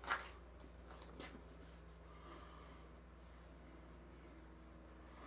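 Near silence: room tone with a steady low electrical hum. There is a faint knock right at the start and another about a second in.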